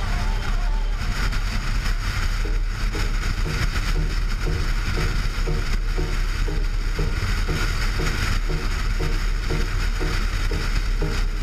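Subaru Impreza cruising at highway speed: a steady low rumble of engine and road noise, with wind rushing over the microphone of a camera mounted on the outside of the car.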